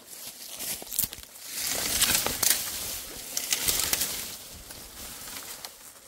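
Rustling and crackling of dry brush and branches, swelling louder for a few seconds in the middle.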